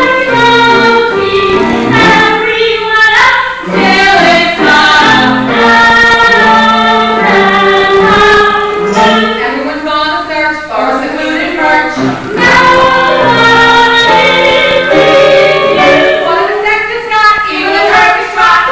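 A stage cast singing a musical number together in chorus, women's voices to the fore, with the sound of a live stage recording.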